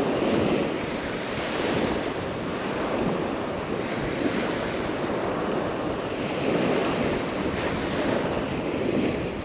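Rough Black Sea surf breaking on the shore, a continuous rush that swells and ebbs, with wind buffeting the microphone.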